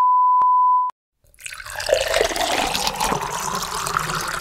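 A steady, loud, high electronic beep tone cuts off about a second in. After a moment of silence, water starts running from a tap into a sink.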